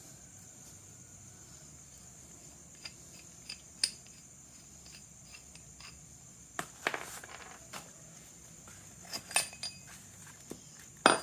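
Scattered light metallic clicks and clinks of small metal parts being handled, a few seconds apart. The sharpest click comes just before the end.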